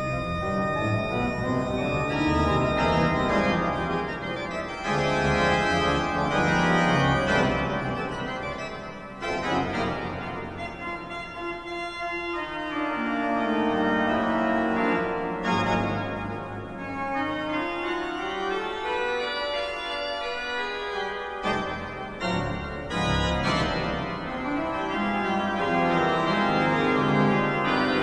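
Church pipe organ playing full sustained chords, with running passages that sweep down and back up in the middle and loudness that swells and drops back.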